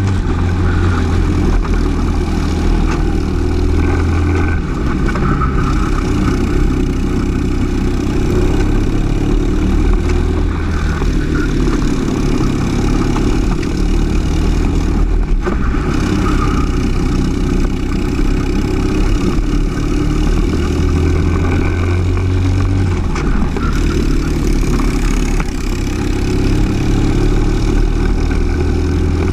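Briggs & Stratton LO206 single-cylinder four-stroke kart engine running at race pace, its note rising and falling as the kart lifts off and accelerates again through the corners.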